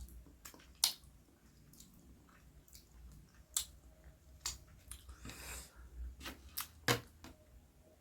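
Close-miked eating sounds: chewing, with scattered sharp mouth clicks and smacks.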